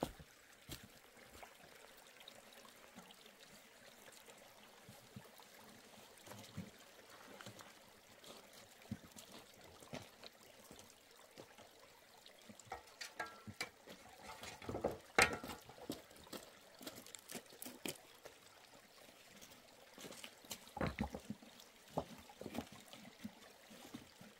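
Water trickling steadily, with scattered clicks and knocks from handling things, a cluster of louder ones about halfway through and more about three quarters of the way in.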